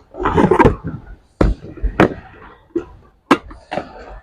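Clatter and a handful of sharp knocks as an electric kettle and its power base are handled and set down.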